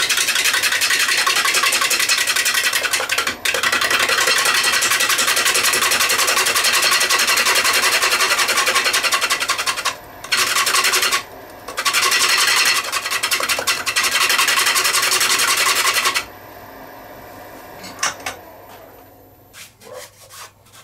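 Gouge cutting the outside of a spinning kiln-dried pine bowl blank on a wood lathe: a loud cutting noise with a fast flutter, broken by two short pauses about ten and eleven seconds in. About three-quarters of the way through the cut stops, leaving only the lathe's quieter running and a couple of small clicks.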